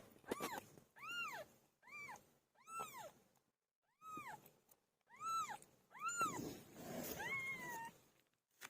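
Newborn kitten mewing over and over, about one high-pitched mew a second, each rising then falling in pitch; the last mew is longer and trails downward.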